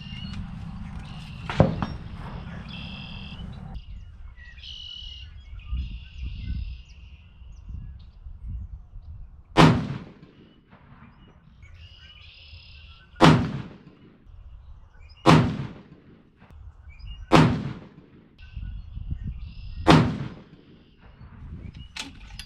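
Five shots from a Christensen Arms MPR rifle in 6.5 PRC, the first about ten seconds in and the rest two to three seconds apart. Each is a sharp crack with a short ringing tail. A single sharp click comes about a second and a half in.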